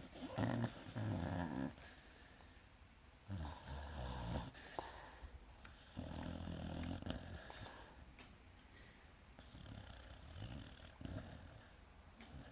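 Pit bull snoring in her sleep: about four snores, each a second or so long and roughly three seconds apart, the last ones fainter.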